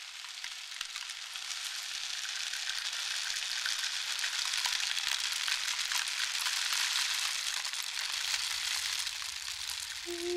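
Steady crackling hiss of many fine ticks, like rain or sizzling, fading in over the first couple of seconds. A flute note enters just at the end.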